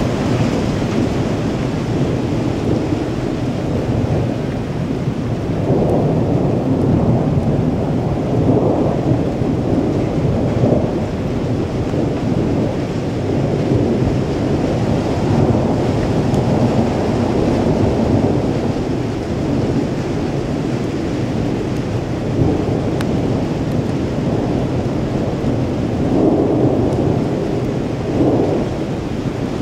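Thunder rolling almost without pause over steady rain, the rumble swelling several times.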